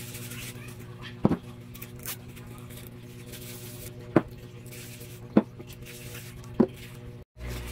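Opened metal tin cans knocked down onto a table, four short sharp knocks spread over several seconds, over a steady background hum.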